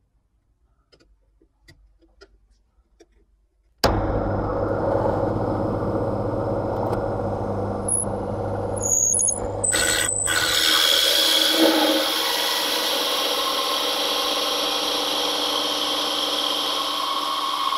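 A drill press running with a circle cutter spinning, cutting a round groove into a wooden board. It starts suddenly about four seconds in, after a few faint scratching ticks of divider points on the wood.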